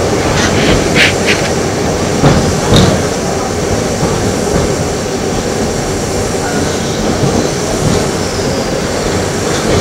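Running sound of an Eizan Electric Railway electric car with nose-suspended traction motors, a steady rumble as it rolls along the line. A few sharp clicks and knocks come in the first three seconds.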